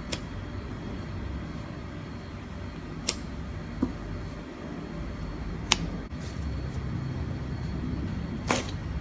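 Clear slime wrapped around a squishy being poked and squeezed by hand: a handful of short, sharp pops a few seconds apart over a steady low rumble.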